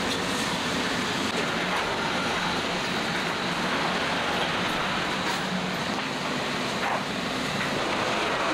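Steady mechanical running noise: an even hiss with a low hum beneath it, unbroken throughout.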